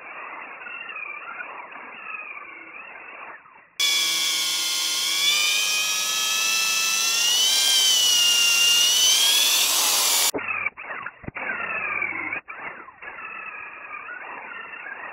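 High-torque, low-speed corded drill with no clutch boring a dowel hole into a dense oak post. The motor's pitch wavers up and down as the bit bites into the tough oak. It is loudest in the middle stretch and cuts out briefly a couple of times soon after.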